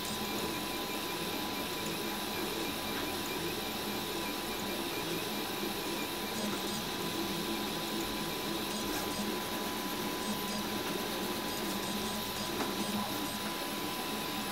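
RepRap Huxley 3D printer running a print, its stepper motors whirring steadily as the head lays down layers. A thin steady high tone runs underneath.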